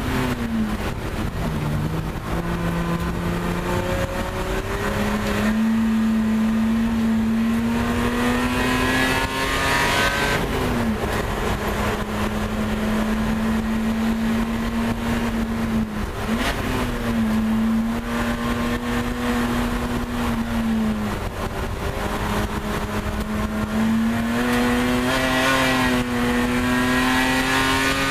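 Race car engine heard from inside the stripped, caged cabin under load, its note climbing slowly and then dropping sharply several times as the car lifts and changes gear around the track.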